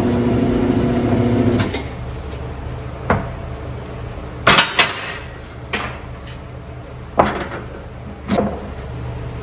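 Tire-changing machine's turntable motor running with a steady hum, stopping about two seconds in, followed by scattered sharp clanks and knocks of tools and parts being handled.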